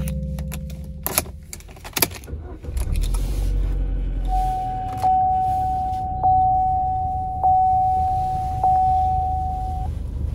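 Key clicking and jangling as it is turned in the ignition, then the Buick's engine starts with a brief low rumble and settles to a steady idle. Over the idle a dashboard warning chime dings four times, about 1.2 s apart.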